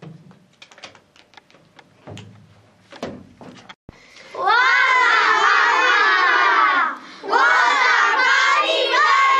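A group of children shouting loudly together in two long stretches, about four seconds in and again about seven seconds in. Before that there are only faint rustles and light clicks.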